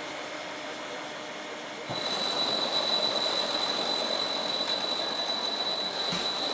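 Dust-extraction vacuum running steadily, then about two seconds in the sound jumps louder into a steady dense racket with a high whine as a Hilti TE 70 rotary hammer drills into concrete through a hollow bit with the vacuum drawing the dust through it.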